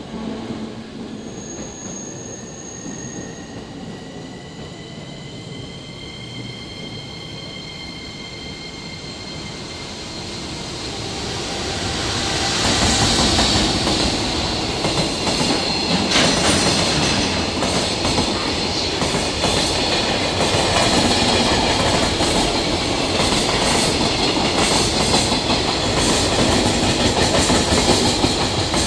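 A container freight train hauled by an electric locomotive approaches and passes at speed. Faint high steady tones come first, then the sound swells from about ten seconds in. From about thirteen seconds the wagons go by with a loud, steady rumble and wheel clatter, with one sharp clank a few seconds later.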